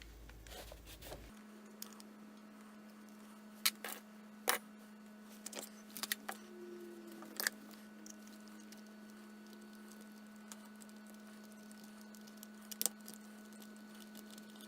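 Scattered sharp clicks and taps of small chainsaw parts being handled and fitted by hand, a few louder knocks among them, over a faint steady hum that starts about a second in.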